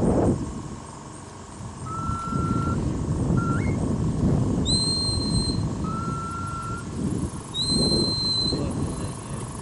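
A sheepdog handler's whistle giving commands to a working border collie: a run of held whistled notes that alternate between a lower and a much higher pitch, one short note snapping upward, over a pulsing low rumble.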